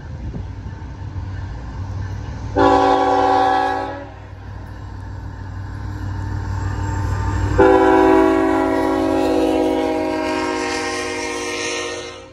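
Air horn of a CN diesel freight locomotive sounding a multi-note chord: a short blast about two and a half seconds in, then a long, louder blast from about halfway until near the end, the closing short-and-long of a grade-crossing signal. Under it the locomotive's diesel engine and the train rumble steadily, growing as it approaches and passes.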